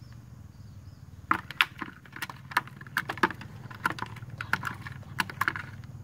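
Clear plastic container being handled: an irregular run of sharp clicks and crackles, about three or four a second, starting about a second in and stopping shortly before the end, over a steady low hum.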